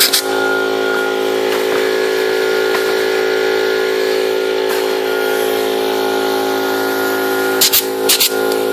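Pneumatic clip gun snapping cage clips shut around the wires of welded mesh panels: one sharp click at the very start and a quick run of three or four clicks near the end, over a steady mechanical hum.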